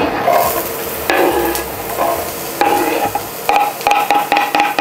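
Chopped onion sizzling in hot coconut oil in a frying pan as it is sautéed, with a utensil stirring and scraping across the pan several times, some strokes giving a short squeak.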